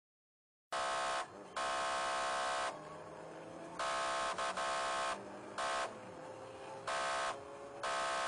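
Police car's siren unit sounding its harsh buzzing horn tone in repeated on-off blasts of a quarter second to a second and a half. Between the blasts the patrol car's engine is heard climbing in pitch as it accelerates. The sound is cut off for about the first second.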